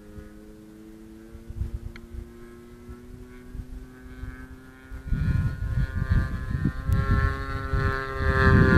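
RC Yak 55 model airplane's engine droning steadily in flight, a distant even tone, getting louder near the end. From about five seconds in, wind buffets the microphone with a low rumble.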